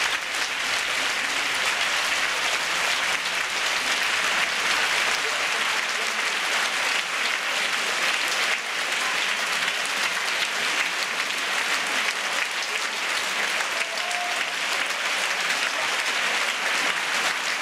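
A large theatre audience applauding: dense, steady clapping with no let-up.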